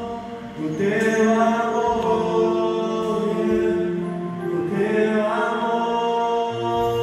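Slow worship music: sustained chords held steady, with a voice singing long held notes that come in about a second in and again near five seconds.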